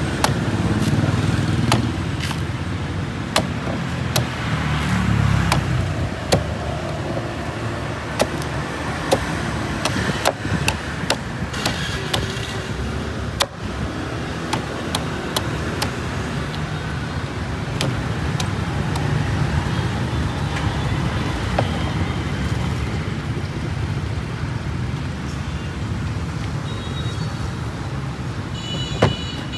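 Large knife hacking and shaving green coconuts: irregular sharp chops and knocks into the husk, over a steady rumble of street traffic.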